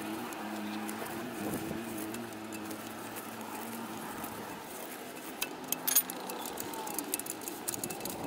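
Metal clicks and clinks of a ring spanner being worked round a loosened 18 mm gearbox-mount bolt. They come from about five seconds in, the loudest near six seconds. Before that there is a steady low hum in the background.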